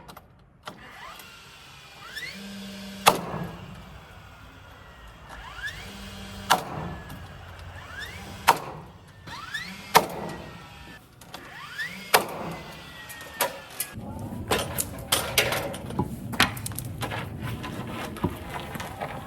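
Siding work on a barn wall: six sharp knocks spaced one to three seconds apart, each led in by a short rising squeak, then a busier run of quicker clicks and knocks near the end.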